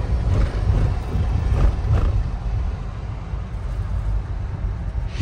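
Steady low rumble of a car driving, heard from inside its cabin, with a few faint knocks.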